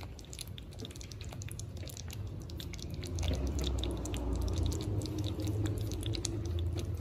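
Thick kadhi curry in a clay pot crackling and bubbling: many small irregular pops over a low rumble that grows louder about three seconds in.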